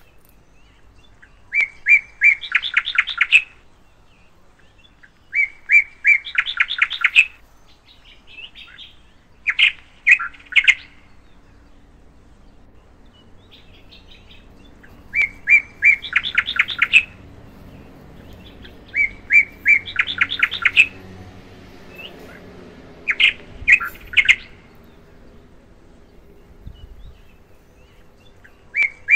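A songbird singing the same phrase over and over, about every four seconds: a few separate clear notes, then a quick trill. A couple of shorter groups of notes come in between.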